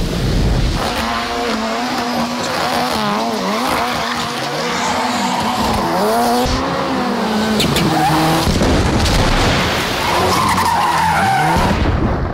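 Ford Fiesta rally car revving hard and repeatedly while spinning donuts, its engine note rising and falling over screeching, skidding tyres.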